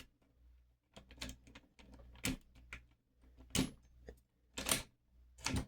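Key being forced into a pin tumbler lock cylinder: irregular sharp metal clicks and scrapes about once a second as the cuts ride over the pins, the key barely going in.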